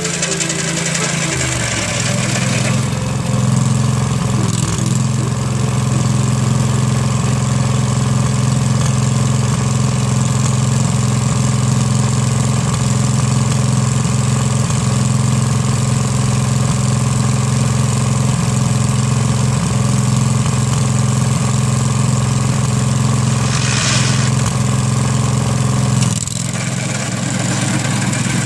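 Rapid Spezial single-axle tractor's engine running steadily as it drives a sickle-bar mower through hay. About two seconds before the end, the engine note drops and gets quieter.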